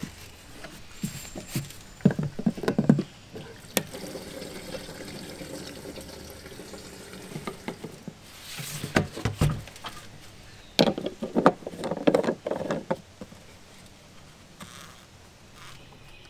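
Gasoline being poured from a gas can into a jet ski's fuel tank, with clusters of knocks and clunks from handling the can and filler.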